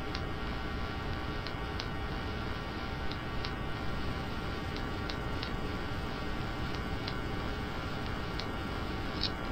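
A steady hum with faint clicks at irregular intervals, about one a second.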